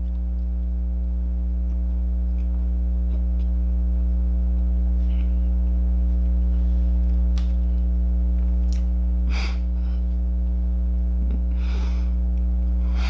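Steady low electrical mains hum, the loudest sound throughout. Over it, faint chewing of gingerbread and a few sniffs, the clearest about nine and twelve seconds in.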